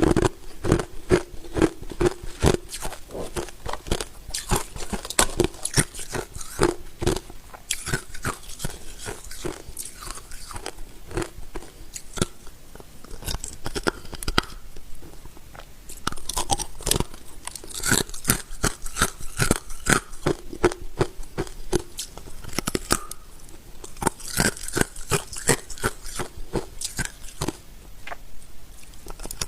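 A person biting and chewing ice, with crisp cracking crunches coming several each second throughout.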